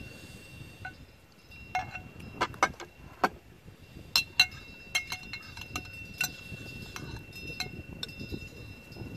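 Metal spoon scraping and clinking against a clear plastic food container as the last of the food is scraped out: a rapid, irregular series of sharp clicks, thickest in the middle.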